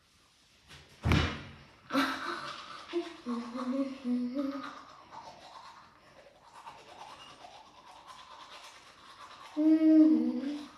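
Teeth being brushed with a toothbrush: repeated scrubbing strokes in the mouth, with a child's muffled voice sounding through the brush for a few seconds after the start and again near the end. There is a loud thump about a second in.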